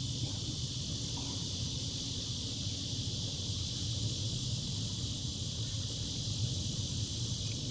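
Steady outdoor ambience: an even high hiss over a low rumble, with no distinct bird calls.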